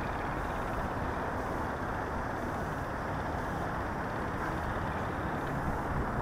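Wind blowing across the microphone of a drone's onboard camera lying in grass: a steady, low rumbling noise.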